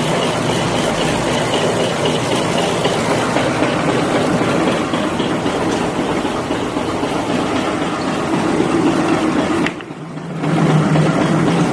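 Bulk wet-wipe making machine running with a steady mechanical noise; the noise drops briefly about ten seconds in and then comes back.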